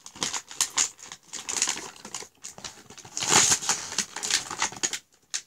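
Cardboard and plastic toy packaging rustling and crinkling as it is pulled apart and handled, in quick irregular crackles, with a louder rustle about three seconds in.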